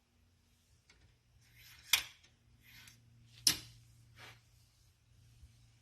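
Small metal tools clicking twice, about a second and a half apart, with softer rustling between, as pipe reamers are picked up and tried against the pipe stem. A faint low hum runs underneath.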